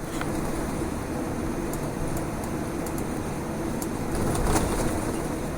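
Steady cabin noise inside a Boeing 787-10 on the ground before takeoff: a low rumble of engines and air conditioning with a faint hum, and a few faint ticks.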